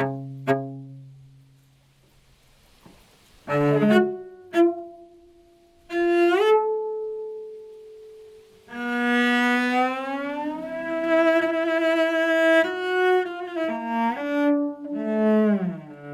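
Solo cello: a plucked note rings and fades, then after a short near-silent pause come two sharp accented notes and a held bowed note; from about nine seconds in, a slow bowed melody of long notes with sliding changes of pitch.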